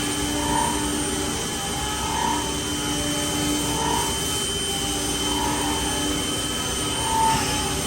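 Smart VX 350-5AX five-axis CNC machining center running: a steady mechanical whine with a high tone, and a short swell that repeats about every second and a half.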